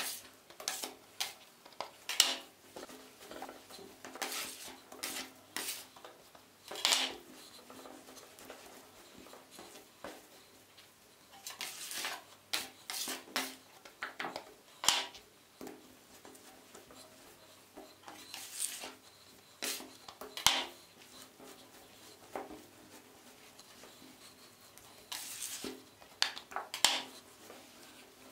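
Metal bench scraper scraping across a wooden tabletop and through soft bread dough, in irregular strokes and knocks, along with hands kneading the dough on the table.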